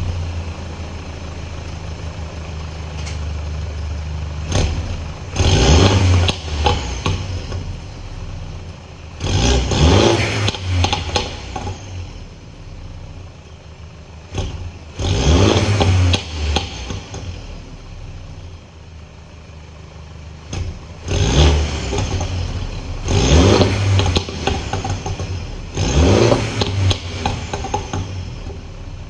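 2022 Mini John Cooper Works 2.0-litre turbocharged four-cylinder idling and revved hard about six times, each rev rising quickly then dropping back with pops and crackles from the exhaust. The car's petrol particulate filter has been removed.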